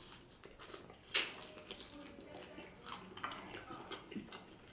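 Faint, close-miked eating sounds: wet mouth smacks and small clicks from chewing chicken wings, with one sharper click about a second in.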